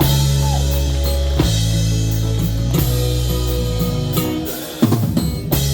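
Live band playing the instrumental opening of a song, with drum kit and bass guitar to the fore. A short break comes just before the end, then a drum hit brings the band back in.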